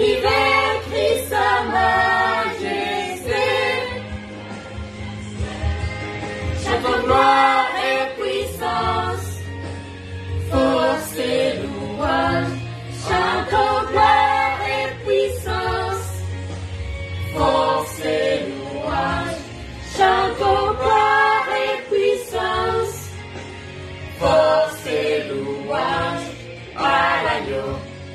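A woman and children singing a French Christian worship song together, in phrases a few seconds long with short breaks between them.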